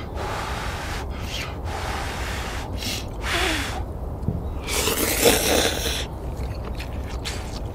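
Ramyeon noodles being slurped in a series of sucking pulls, the loudest and longest about five seconds in.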